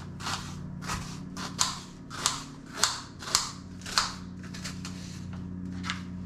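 Onion being chopped: a run of short, sharp chops, about two a second, over a faint steady low hum.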